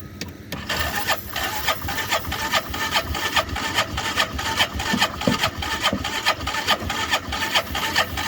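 Hisun side-by-side's engine cranking over on the electric starter without catching: an even, rhythmic chug of about three to four strokes a second. It is a cold start on ether sprayed into the air cleaner.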